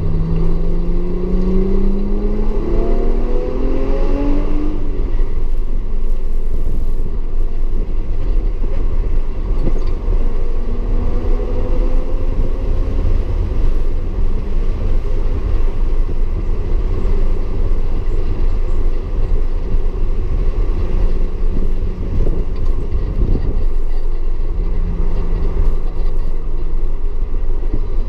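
Audi S4 engine running hard on track, its note rising in pitch as it accelerates over the first few seconds and again about ten seconds in, then holding steadier, over a heavy constant low rumble.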